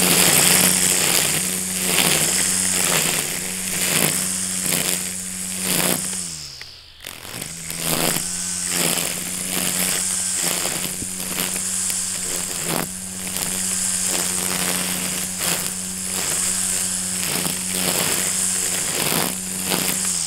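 Wild Badger 40-volt cordless string trimmer running at full speed, its spinning line cutting grass and weeds with a high hiss and irregular ticks. About six seconds in the motor winds down and then spins back up, and it winds down again at the very end.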